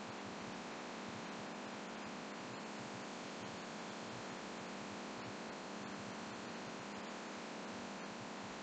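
Laminar flow hood's blower running: a steady rush of filtered air with a low hum, with faint scattered small ticks over it.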